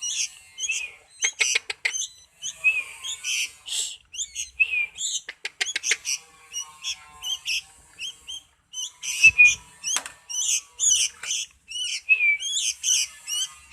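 Pet songbird chirping over and over in short, high, quick calls, some sliding up or down, while being fed crickets. Quick runs of clicks break in now and then, and a sharp knock comes about nine seconds in.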